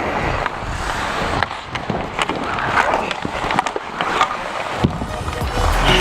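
Inline skate wheels rolling and scraping on a hard rink surface, with scattered sharp clacks of hockey sticks.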